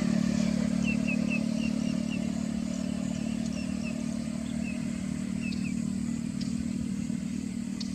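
Steady low mechanical hum, like a nearby engine or traffic, with small birds giving short high chirps, several in quick runs during the first few seconds.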